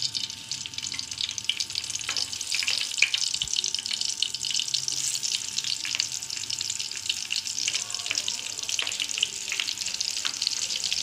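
Masala-stuffed green chillies frying in hot cooking oil: a steady sizzle with many small crackling pops.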